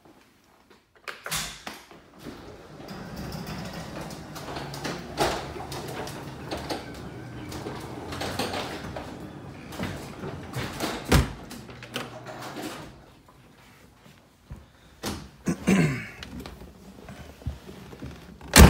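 Handling noise of someone climbing into a 1961 Corvette: thumps and rustling over a steady mechanical rumble that dies away past the middle, ending in a sharp slam of the car door. The engine is not yet running.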